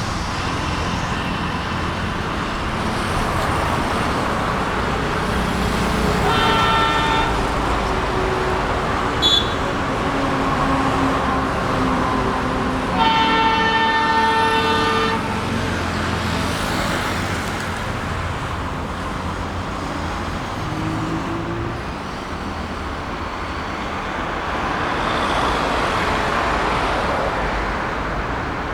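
An ALCo-design Indian Railways diesel locomotive sounds its horn twice over the steady rumble of the running train: a shorter blast about a quarter of the way in, then a longer, louder one about halfway through.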